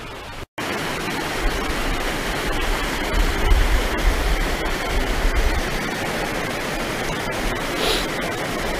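Steady rush of white water in a stream, with wind buffeting the microphone in uneven low rumbles. The sound cuts in after a brief gap about half a second in.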